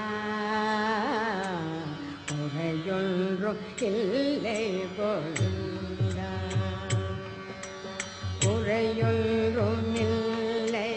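Carnatic music in raga Sivaranjani: a gliding, ornamented melodic line over a steady drone, with drum strokes joining about halfway through.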